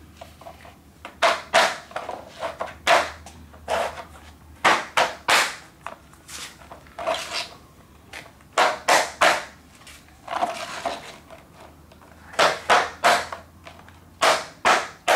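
Interlocking plastic diamond-plate garage floor tiles being laid and connected: a string of irregular clacks and knocks as tiles are set down on the floor and pushed together at their male and female connectors.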